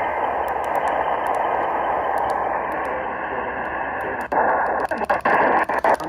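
AM radio receiver tuned to a channel with no programme, putting out steady static hiss with faint crackle. About four seconds in, the sound turns choppy, with clicks and brief dropouts, as the radio is switched to another AM station.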